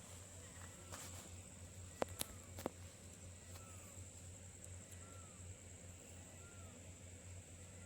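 Faint, quiet background with a short chirping call repeated about once a second over a low steady hum, and a few sharp clicks about two seconds in.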